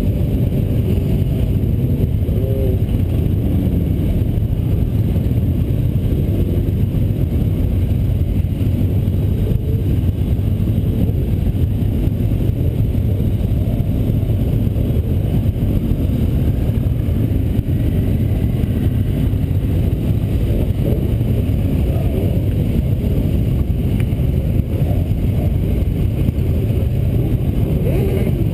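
Many motorcycle engines idling and pulling away slowly at low revs, a steady deep rumble, with a brief rev rising near the end.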